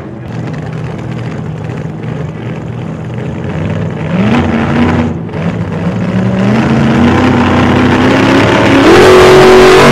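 A car engine accelerating and growing louder, its pitch stepping up about four seconds in, climbing slowly, then jumping higher again near the end.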